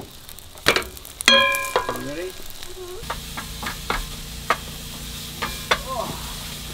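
French toast sizzling in a frying pan on a portable gas stove, with a wooden spatula or spoon clicking and scraping against the pan. A steady low hum joins about three seconds in.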